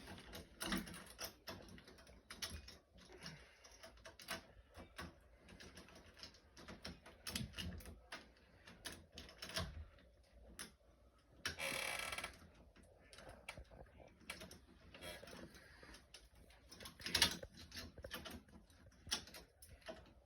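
Irregular small clicks and knocks of hands and tools working on door lock hardware and its screws, with a short rasping sound about two-thirds of the way through and a sharper knock soon after.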